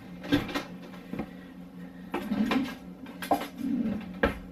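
Kitchen handling sounds: about half a dozen sharp knocks and clatters as utensils and cookware are picked up and set down beside a sheet pan of roasting vegetables, over a steady low hum.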